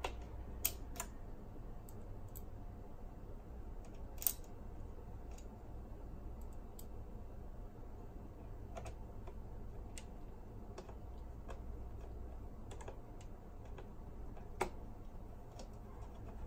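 Scattered small clicks and taps of a tool and small plastic parts being handled in an opened cassette deck mechanism during a belt replacement. A few sharper clicks stand out: about a second in, about four seconds in and near the end.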